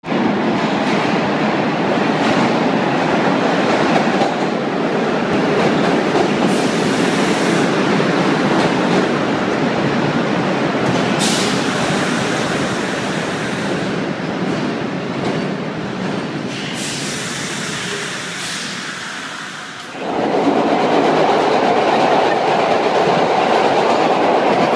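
A 1930s-era vintage subway train rolling into an underground station: a steady rumble of wheels on rail, with three short high-pitched bursts along the way and the rumble easing off shortly before twenty seconds. From about twenty seconds in comes the louder rumble and clatter heard inside a car of the moving train.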